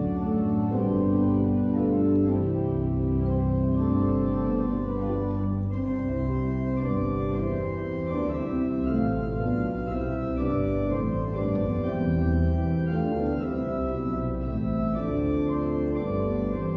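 Organ playing sustained chords that change every second or two over a deep bass.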